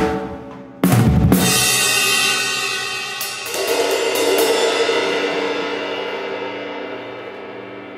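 Drum kit playing stops, and about a second in cymbals and drums are struck together in one closing hit. The cymbals ring on and slowly fade, with a second, softer cymbal strike swelling the ringing about three and a half seconds in.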